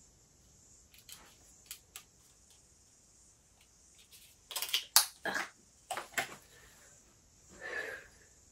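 Small metal screws and an SSD caddy handled at a laptop: faint clicks early on, then a quick run of sharp clicks and knocks about halfway through, and a short softer scrape near the end.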